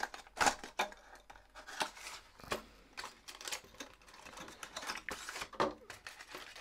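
A fishing lure's plastic packaging being opened and handled by hand: scattered clicks, crinkles and scrapes, the loudest about half a second in.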